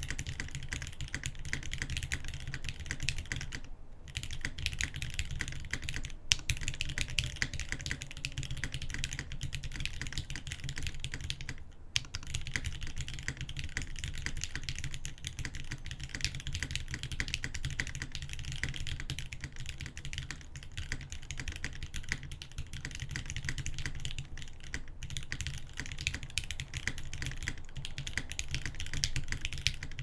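Continuous typing on a zekk.works Jennie O-ring-mounted TKL mechanical keyboard with lubed Gateron Ink Black linear switches on an aluminum plate, under GMK keycaps: a dense stream of keystrokes with a few short pauses and one louder clack about six seconds in.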